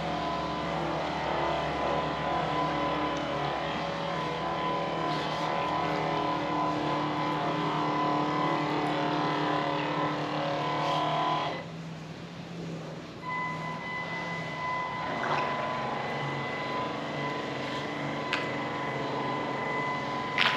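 Electric drive motor of a radio-controlled Pro Boat Harbor Tug running with a steady whine. It cuts out about halfway through, then comes back in a second or so, whining again.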